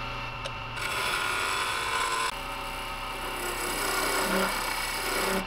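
Wood lathe running with a steady motor hum while a hand-held turning tool scrapes the edge of a spinning Lexan polycarbonate gear blank. The cutting noise grows louder about a second in.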